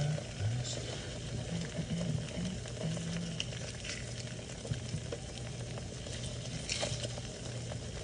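Four eggs sizzling and crackling in a ceramic nonstick frying pan, with a silicone spatula working around the edges of the whites. A low, wavering hum runs underneath.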